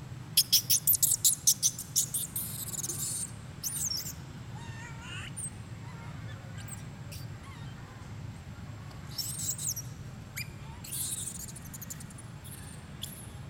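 Birds calling: a loud, rapid run of high, sharp notes about a second in, then fainter warbling notes and a few short high bursts later.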